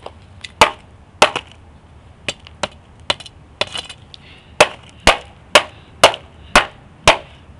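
Repeated sharp whacks of a long rod striking a mock laptop made of taped notebooks with real laptop parts inside. There are two hard hits in the first second and a half, a few lighter hits in the middle, then six hard hits about every half second near the end.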